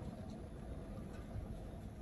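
Charcoal fire burning in the open firebox of an offset barrel smoker: a steady low rumble with faint scattered crackles.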